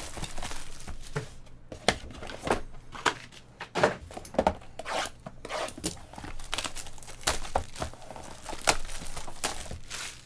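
Trading card packs and their wrappers being torn open and crinkled: irregular sharp crackles and rips, several a second.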